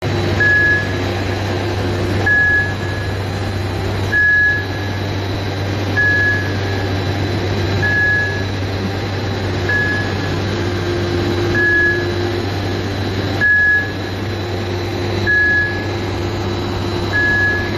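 Dockside crane's machinery running with a steady low hum, while its warning beeper sounds short single beeps about every two seconds.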